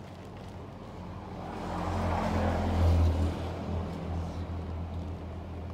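A motor vehicle passing by, its engine and tyre noise swelling to a peak about three seconds in and then easing off over a steady low engine hum.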